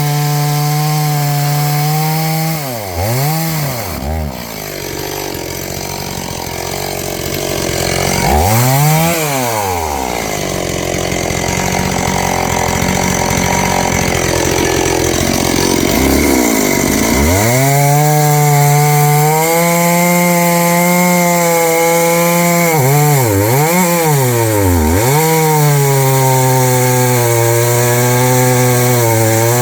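Noker 381 72cc two-stroke chainsaw running steadily, then revved and cutting into wood for around twelve seconds, the engine note buried in the noise of the cut, before running on with its throttle dipping and rising a few times near the end.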